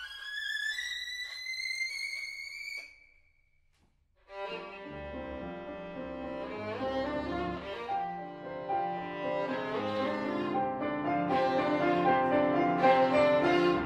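Background violin music: a bowed note slides up and is held, stops about three seconds in, and after a short pause a fuller string passage begins.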